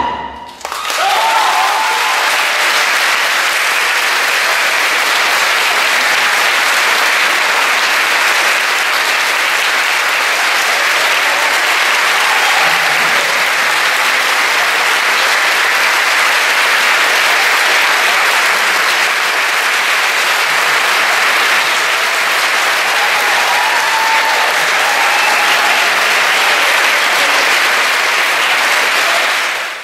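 Large audience applauding, dense and steady, breaking out within the first second right after the music stops.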